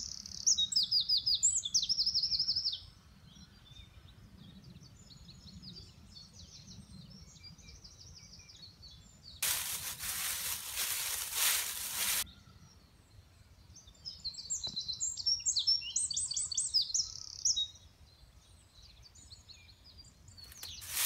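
Songbirds singing in rapid high trills over a faint low rumble of outdoor ambience, in two spells. About ten seconds in, a burst of rustling hiss lasts for about three seconds.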